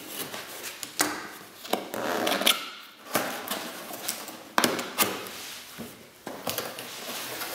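Cardboard parcel box being cut open along its glued side with a box cutter: scraping and scratching of the blade through the cardboard, broken by several sharp knocks and clicks, then cardboard flaps rubbing as the lid is folded open near the end.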